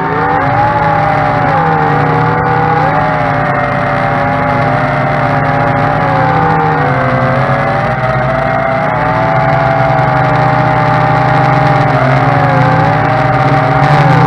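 Tarantula X6 hexacopter's propeller motors whining close up in flight. Several pitches hold steady, then dip and rise again now and then as the motors change speed.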